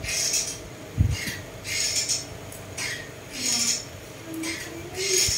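Fresh wild betel (lá lốt) leaves rustling and crinkling as they are rolled by hand around mushrooms, in a run of short rustles a little under a second apart, with a dull knock on the table about a second in.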